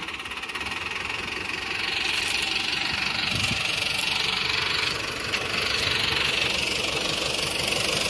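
Tractor diesel engine running steadily under load as it pulls a tine cultivator through the soil, a dense rapid chug with a hiss over it. It gets a little louder about two seconds in.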